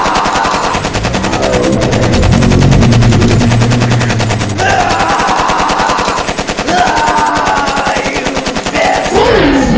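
Sustained rapid machine-gun fire sound effect from a spaceship's gatling cannon, running without a break. Pitched wailing tones are layered over it several times, and one slides downward near the end.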